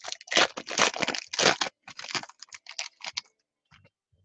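Foil trading-card pack wrapper crinkling and tearing as it is opened by hand: a run of rapid crackling rustles that dies away after about three seconds.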